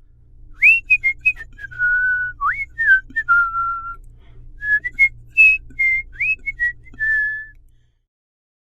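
A person whistling a short tune: a run of quick swooping notes and a few held ones, several rising sharply at the start, over a faint low hum.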